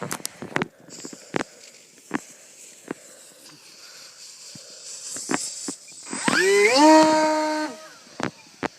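RC airplane's electric motor and propeller spinning up with a rising whine that levels off into a steady tone for about a second and a half before cutting off. Before it come a steady high hiss and scattered sharp clicks.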